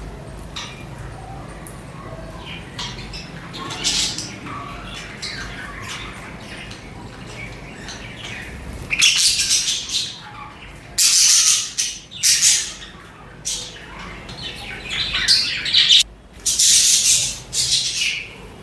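A flock of budgerigars (budgies) chirping and chattering. The calls are softer at first, then from about halfway a string of much louder, scratchy calls comes in quick bursts.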